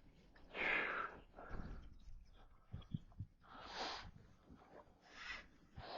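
A person breathing close to the microphone: about five separate soft breaths, with a few faint clicks in between.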